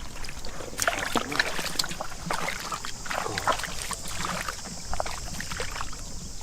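Shallow water sloshing and splashing in quick, irregular bursts, as from hands and legs moving through a flooded field, over a steady high hiss.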